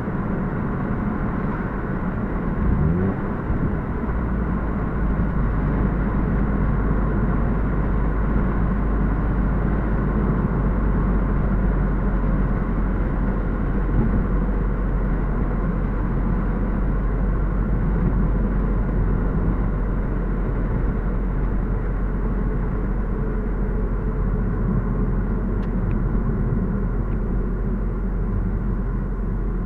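Car cabin noise while driving: steady engine and tyre rumble with road noise, with a brief rising tone about three seconds in.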